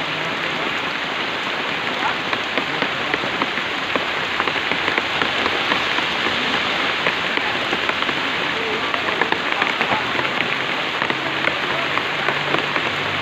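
Steady rain, a dense patter of small drops.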